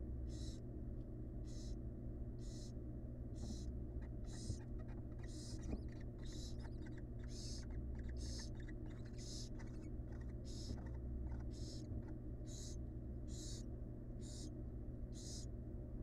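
Barn owl nestlings' hissing begging calls, the rasping snore of young chicks, repeating a little over once a second over a steady low hum.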